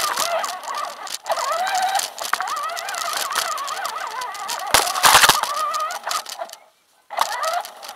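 1:6 scale 4x4 RC truck driving over rough ground: its motor and drivetrain whine, rising and falling with the throttle, over a steady rattle. A loud clatter comes about five seconds in, and the sound cuts out briefly near seven seconds.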